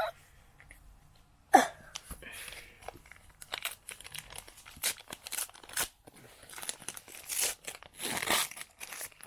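Foil trading-card pack wrappers crinkling and tearing, with cards rustling as they are handled, in irregular bursts that grow busier in the second half. One short, louder sound comes about a second and a half in.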